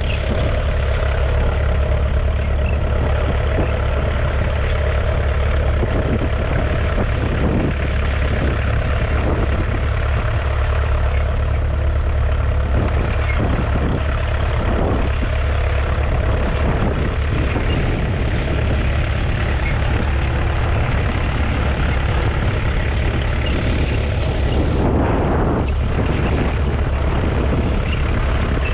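A 1959 McCormick International B275's 2.3-litre four-cylinder diesel engine running steadily at close range, with a strong low drone.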